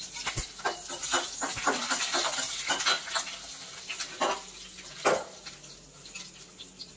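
Hot oil crackling and spitting in a steel kadai as broken dried red chillies fry with popped mustard seeds and golden-brown chana dal, a steel ladle stirring against the pan. The crackling is dense at first and thins out, with two louder pops about four and five seconds in.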